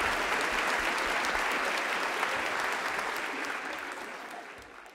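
Concert audience applauding, a dense steady clapping that fades away over the last second or so.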